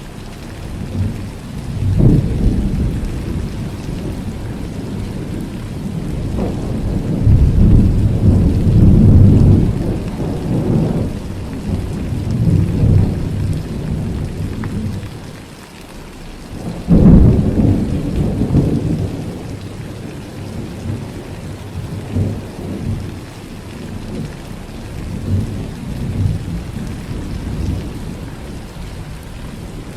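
Steady rain with thunder rolling and rumbling again and again. The sharpest, loudest clap comes a little past halfway, with a rumble trailing after it.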